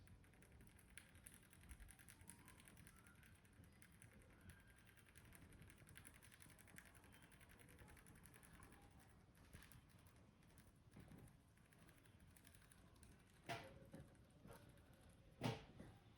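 Faint tapping and rubbing of a barber's hands working on a head during a massage, with two sharper knocks about two seconds apart near the end.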